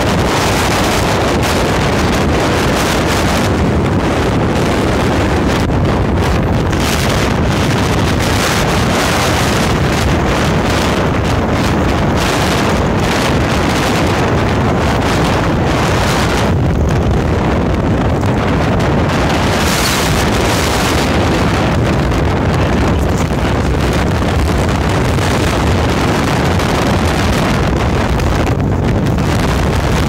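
Strong wind blowing over the microphone, loud and steady throughout.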